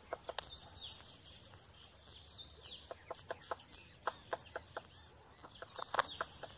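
Woodpecker pecking at wood: a series of separate sharp knocks at an uneven pace, coming several a second in the second half, the loudest about six seconds in. Bird calls chirp between about two and four seconds in.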